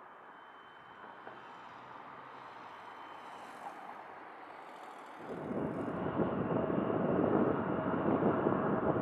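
Faint jet whine from a Cessna Citation Longitude business jet, then, about five seconds in, a sudden jump to much louder jet engine noise with a steady tone from an Airbus A321neo (CFM LEAP-1A engines) on landing.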